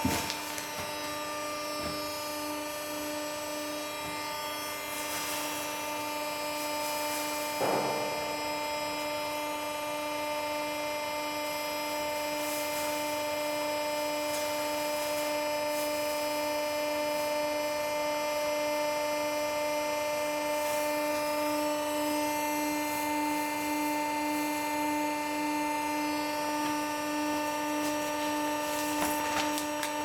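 Semi-automatic pet pack baler's electric motor running with a steady hum, with faint rustling of straw loaded by hand into its hopper and one brief thump about eight seconds in.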